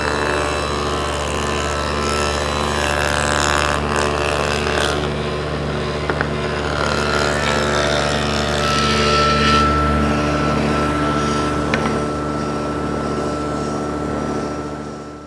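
Table saw running with a 5/16-inch-wide dado blade stack, cutting a groove along a wooden frame piece in two passes, with a rough cutting noise over the steady motor hum and blade whine. The saw spins down near the end.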